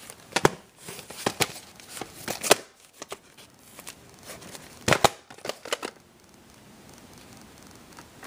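A VHS tape and its cardboard box handled close to the microphone: scattered sharp clicks, taps and rustles, busiest in the first few seconds and again about halfway, then quieter.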